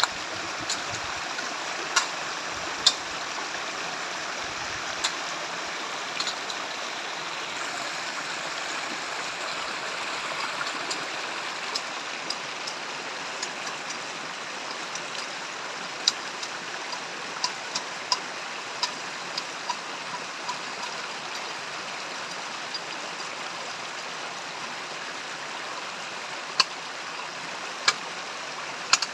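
Steady rushing water of a forest stream, with scattered sharp clicks over it, a few early and more from about halfway on.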